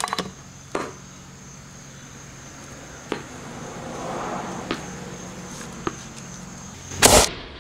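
Low background hiss with a few light clicks, then one short, loud thump about seven seconds in.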